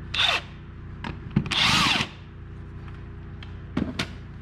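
Power drill run in two short bursts, its motor spinning up and winding down, with a few clicks of the tool and parts being handled.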